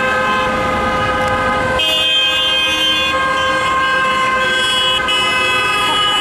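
Several car horns sounding together in long, held blasts, the mix of pitches changing about two seconds in.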